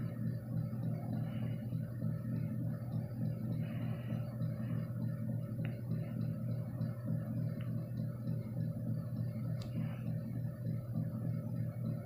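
1981 Emerson friction-drive ceiling fan running at full speed: a steady motor hum with a few faint clicks.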